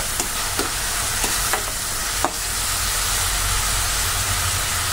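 Chopped onions and green chilli frying in hot oil and butter in a non-stick kadai: a steady sizzling hiss, with a few light scrapes and taps of a perforated spatula stirring them.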